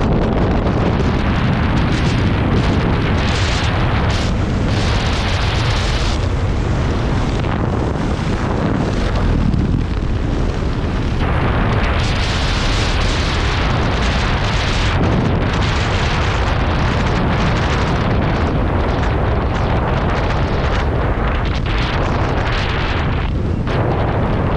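Airflow buffeting the camera microphone during a descent under an open parachute canopy: a loud, steady rumble, with a hiss on top that rises and falls every few seconds.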